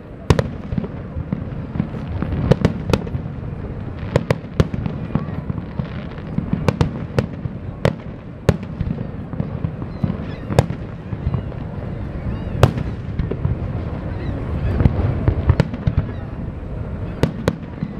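Fireworks display: aerial shells bursting overhead with about twenty sharp bangs at irregular intervals, sometimes two or three in quick succession, over a steady low rumble.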